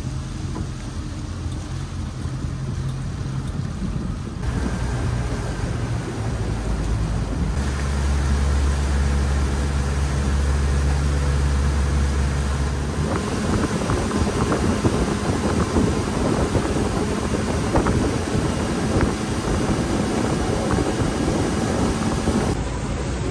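Outboard motorboat under way: a steady engine drone whose pitch shifts a few times. From about halfway through, the rush of wind on the microphone and water against the hull takes over.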